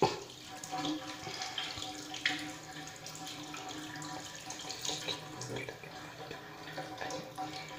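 Tap water running into a sink, a steady hiss with a faint hum of tones under it and a few light knocks and clatters.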